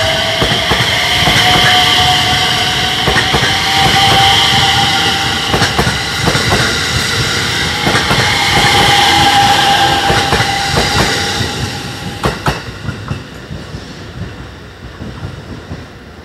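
JR West 321 series electric train accelerating away, its Toshiba VVVF inverter and traction motors whining in steady tones over wheels clicking across rail joints. The sound fades after about twelve seconds as the train moves off.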